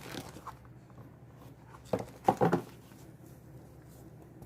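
Light handling and rustling of a back supporter and its packaging, with a short vocal sound a little after two seconds in.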